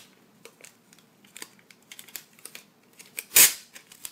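Adhesive tape handled on a tape dispenser: small crackling clicks as the tape is worked, then one loud, short rip of tape pulled off the roll a little over three seconds in.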